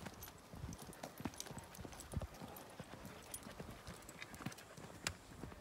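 Footsteps of hikers walking on a trail: an uneven run of short knocks and thuds, a few per second.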